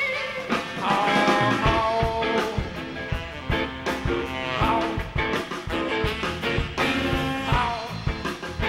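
Live electric blues band playing: drums keeping a steady beat under bass and electric guitar, with a melodic lead line over them.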